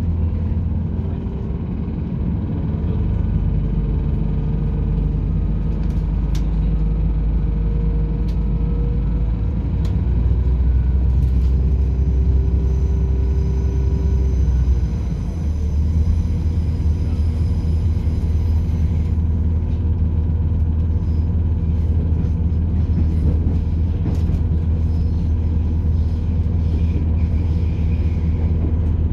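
Interior running noise of a British Rail Class 170 diesel multiple unit under way: a steady low rumble from the underfloor diesel engine and running gear, with a faint whine over it for several seconds. About fifteen seconds in the rumble dips briefly and changes note before carrying on steadily.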